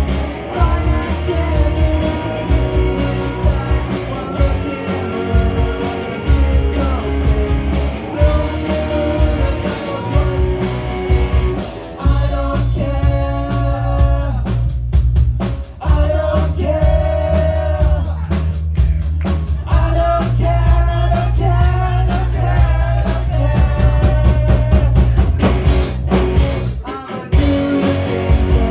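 Rock music with guitar, bass and drums over a steady beat, with a melody line carried over the top.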